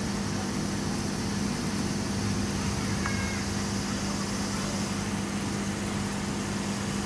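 Aquarium aeration and filter equipment running: a steady, unchanging machine hum with a constant low drone under an even hiss.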